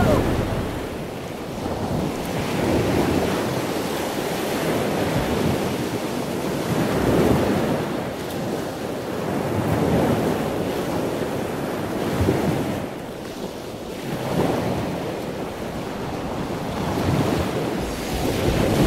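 Ocean waves and wind: a steady rush of water that swells and eases about every three to four seconds.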